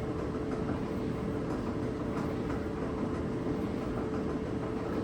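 Whirlpool gas dryer running, its drum spinning with a steady rumble and a knocking, wobbling sound: a fault in the drum's support that is yet to be traced.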